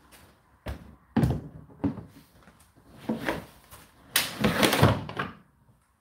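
The plastic condensed-water container of an Indesit condenser tumble dryer being handled and slid back into its drawer slot: a click and a few knocks and clunks, then the loudest part, a longer scraping slide a little over four seconds in.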